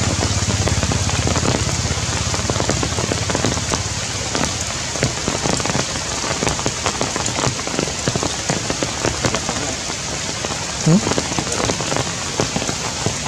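Heavy rain falling on tree leaves: a steady hiss thick with the ticks of single drops. One short rising sound cuts through near the end.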